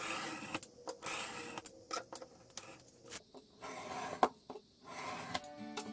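Snap-off utility knife cutting laminated cardstock along a metal ruler: several scratchy cutting strokes with a few sharp clicks between them.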